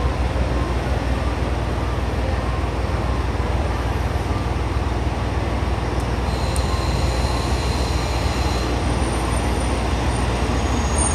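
KiHa 47 diesel railcar train pulling slowly into a station platform: a steady low rumble of its diesel engines and wheels on the rails. A thin, high-pitched squeal starts about two-thirds of the way in as it brakes, and jumps higher near the end.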